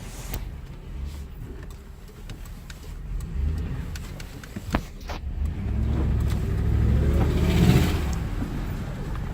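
Car engine running, growing louder from about six seconds in with its pitch rising and falling, loudest near the eight-second mark. A single sharp click near the middle.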